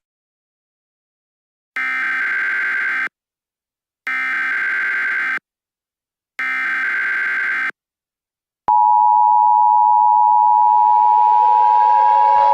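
Emergency Alert System signalling. Three short, identical warbling data bursts of the SAME header come about two seconds apart. Then, about nine seconds in, the steady two-tone EAS attention signal starts and holds loud, with another sound swelling in beneath it near the end.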